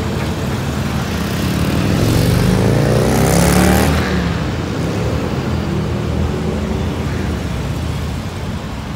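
Convoy traffic passing on a city street: engines and tyres swell to a peak about three to four seconds in as a military pickup truck drives close by, then ease off as it moves away.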